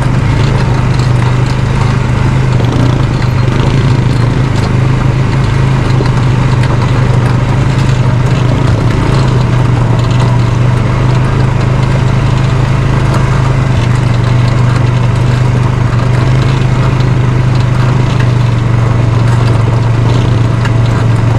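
Quad bike (ATV) engine running at a steady low engine speed while riding over gravel, a constant low drone with rough noise from the ride over it.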